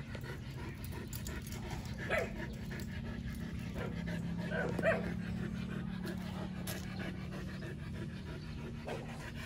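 Belgian Malinois–aspin mix dog panting, with two brief whines about two and five seconds in, over a steady low hum.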